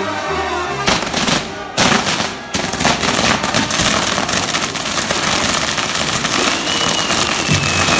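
Fireworks castle tower going off: a loud, dense run of rapid firecracker cracks and bangs that starts about a second in and keeps going, after brass band music at the start. Near the end a long whistle sets in and falls slowly in pitch.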